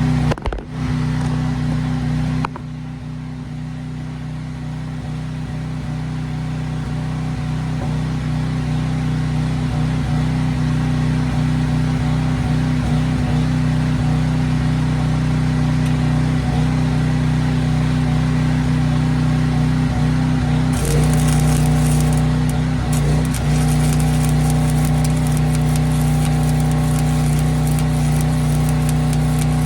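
Engine of an engine-driven Hobart welder running steadily. Over it comes the crackle of a stick-welding arc, which cuts off suddenly about two seconds in and starts again about two-thirds of the way through.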